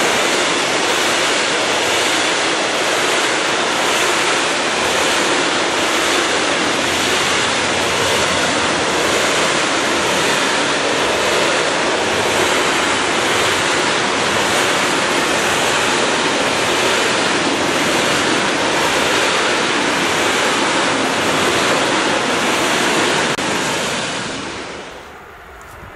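A long train of covered freight wagons rolling past close by at speed: a loud, steady roar of steel wheels on rail. It drops away near the end.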